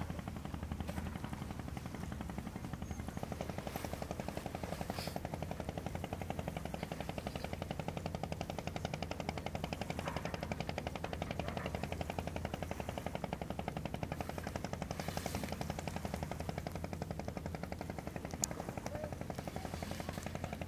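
An engine running steadily with a rapid, even low putter, broken by a few faint clicks.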